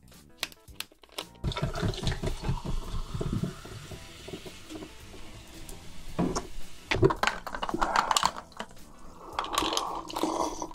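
A bottle of sparkling water is twisted open with a few cap clicks, then poured over ice into a glass, where it fizzes and crackles. A few sharp knocks follow, and near the end the water is gulped from the glass.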